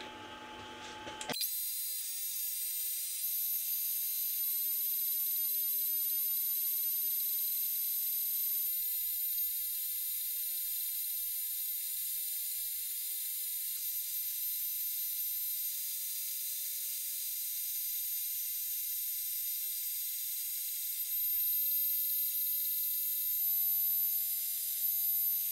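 Makita trim router on a CNC machine running with a 1/8 inch bit, drilling peg holes: a steady high-pitched whine over hiss that starts about a second in.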